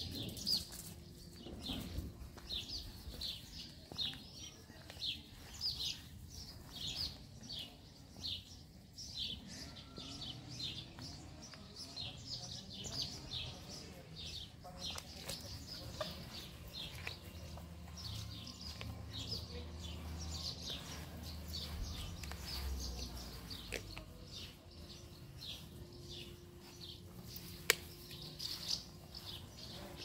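Small songbirds chirping on and on, short high downward chirps about two a second. A low hum comes in about the middle, and there is one sharp click near the end.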